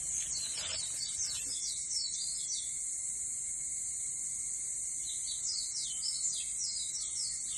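Birds chirping in two quick runs of short descending notes, over a steady high-pitched drone of insects such as cicadas or crickets.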